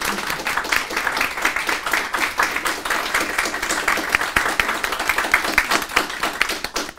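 Audience applauding: many hands clapping in a dense, irregular patter that dies away near the end.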